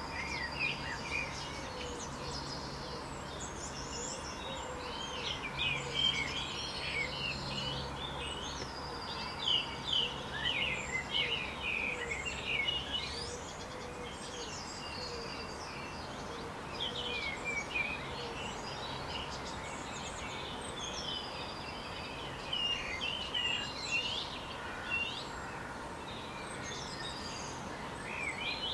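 Songbirds singing, a varied run of high whistles, trills and short chirps coming in clusters. Beneath them runs a steady low background hum that drops away about halfway through.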